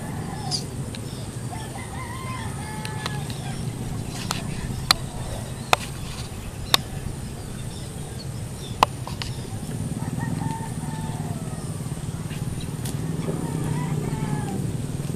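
Rooster crowing a few times, over a steady low hum, with four sharp clicks in the middle.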